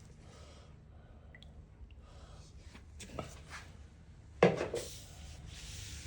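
Wooden cutting board being handled on a work surface: a few light knocks, then one loud knock about two-thirds of the way through, followed by steady rubbing as oil is wiped onto the board.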